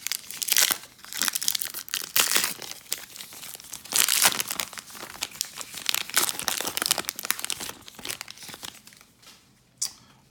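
A baseball card pack's wrapper being torn open and crinkled, a dense crackling that is loudest about four seconds in and dies down near the end.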